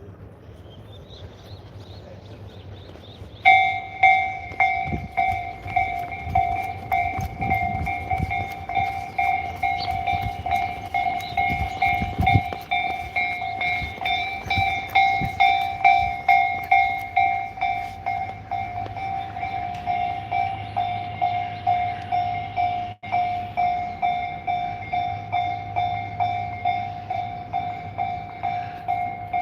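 Japanese railway level-crossing warning bell starting abruptly a few seconds in, then ringing in a steady repeating ding a little under twice a second. Low thuds and rumble sound under it for several seconds.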